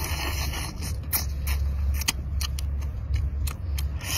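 Cooked mantis shrimp shell cracking and crunching as it is bitten and pulled apart at the mouth: a run of sharp, irregular crackles and clicks over a steady low hum.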